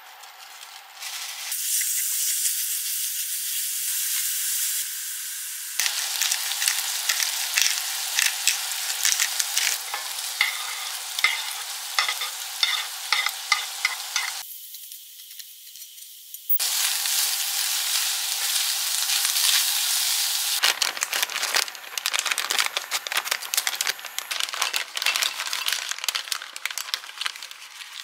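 Ground meat frying with a steady sizzle in a small cast-iron skillet, pushed around with a wooden spoon, with chopped onion tipped in about halfway through. In the last seven seconds, a snack bag crinkles as tortilla chips are poured out onto a plate.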